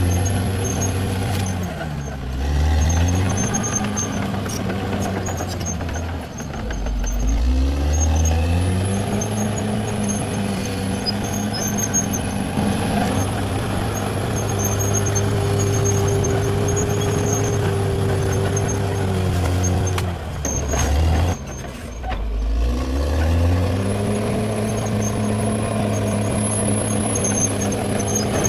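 Caterpillar D6R XL bulldozer's diesel engine running steadily under work. Its pitch drops sharply and climbs back three times, about two, seven and twenty-two seconds in.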